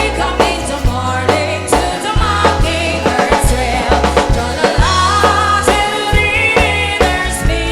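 A band playing a song with sung vocals over a steady drum beat and heavy bass.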